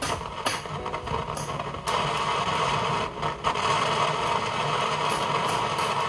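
Handheld electric rework tool running with a steady hiss from about two seconds in, briefly dipping a little after three seconds. Before it come a few clicks.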